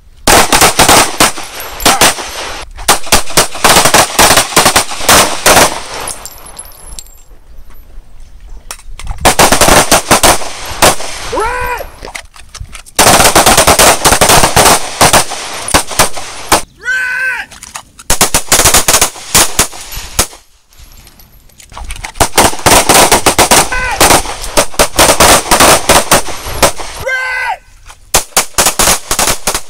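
A line of handguns firing together: rapid, overlapping pistol shots in about seven bursts of a few seconds each, with short pauses between them.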